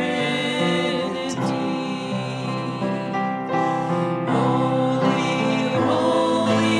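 Congregational worship song: voices singing together over instrumental accompaniment.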